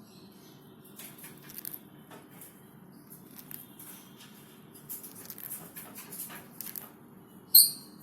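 Fischer's lovebirds snoring: scattered soft, high crackling clicks over a steady low hum, with one sharp, high chirp near the end, the loudest sound.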